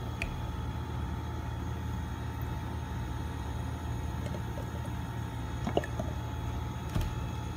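Cooking oil poured from a plastic bottle into a glass measuring cup, over a steady low hum, with a few light knocks of bottle and cup near the end.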